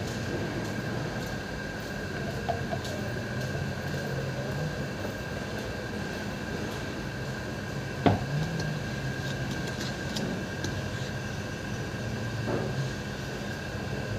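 Steady mechanical background hum with a faint constant whine, broken by a sharp knock about eight seconds in and a softer one later: tool and grease tin handled over the starter motor's planetary gears as they are greased.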